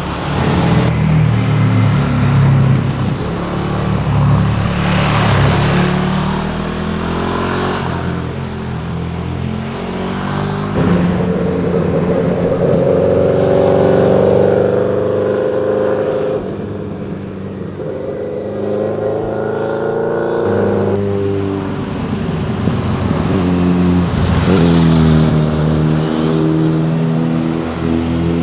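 Sport motorcycles riding past through bends one after another, their engines revving up and falling back with throttle and gear changes. The sound changes abruptly about eleven and twenty-one seconds in, as one passing bike gives way to the next.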